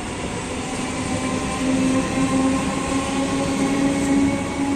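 Bandel–Katwa electric local train running, with a humming tone that rises slowly in pitch and grows louder about two seconds in.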